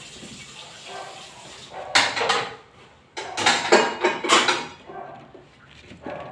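Clatter of hard objects being handled and knocked together, in two bursts: a short one about two seconds in and a longer one from about three to nearly five seconds in.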